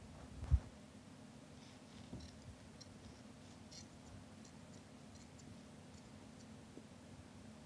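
Faint clicks and rustles of a crochet hook working thick white yarn, with a dull thump about half a second in, over a low steady hum.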